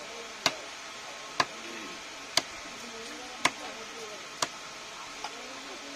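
Cleaver chopping through a pangas catfish into steaks on a wooden log chopping block: six sharp strikes about a second apart, the last one fainter.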